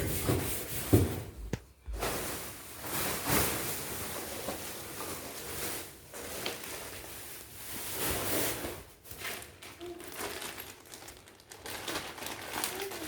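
Irregular rustling and rubbing of TV packaging being handled, with a couple of light knocks about a second in.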